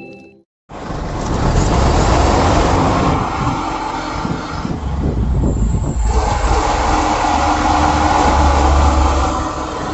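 Mitsubishi Fuso Canter common-rail diesel engine running roughly, starting abruptly about a second in. The knocking and misfiring it is running with come from worn injector control valves.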